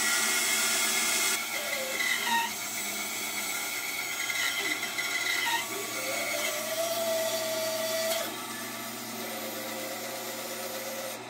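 Bandsaw running and cutting through a thick, still-green black walnut blank, rough-cutting a gun-stock outline; its whine wavers in pitch as the wood is fed, and the sound drops to a lighter level about eight seconds in.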